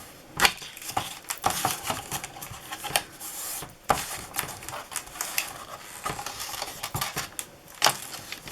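Stiff 300 GSM cardstock strip being folded and creased along its score lines: irregular clicks, taps and rustles of the handled card.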